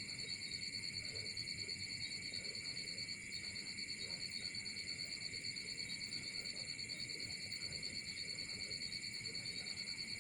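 Night-time chorus of insects chirping: a steady, high, rapidly pulsing trill that dips briefly about three seconds in.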